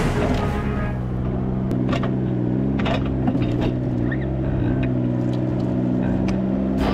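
A vehicle engine running steadily, its pitch shifting slightly a couple of times, with a few light knocks and ticks.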